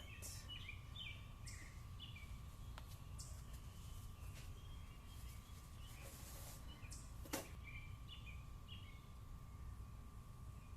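Faint background of steady low rumble and hum, with scattered short high bird chirps and a sharp click about seven seconds in.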